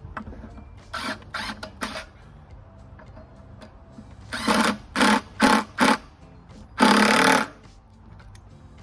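Cordless power drill/driver running in short trigger bursts while driving screws: four quick bursts, then four louder ones and one longer run near the end.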